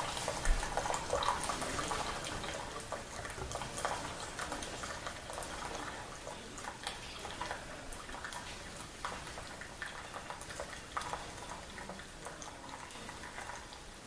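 Keurig Special Edition single-cup brewer brewing: hot water hissing and gurgling as coffee streams into the cup, with scattered small crackles, slowly getting quieter.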